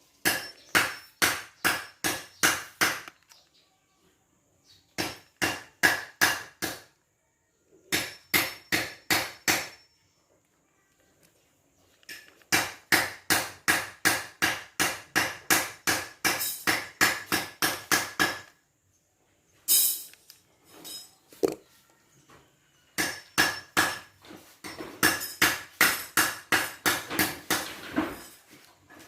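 A hammer striking metal in runs of steady blows, about three a second, each blow ringing briefly, with short pauses between the runs.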